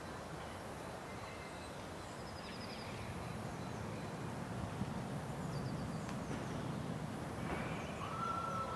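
Outdoor park ambience: a steady low background rumble with a few faint bird chirps, and a short high whistle-like tone near the end.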